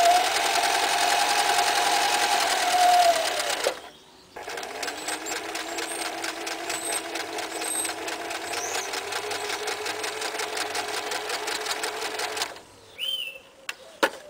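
Toyota 9060 electric sewing machine stitching through fabric: motor whine with a fast, even needle clatter. It stops briefly about four seconds in, then runs again at a slower speed until it stops near the end, followed by a sharp click.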